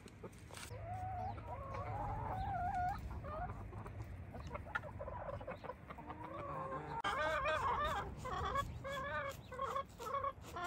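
Chickens clucking in their pen: a drawn-out wavering call about a second in, then a quick run of short clucks in the second half.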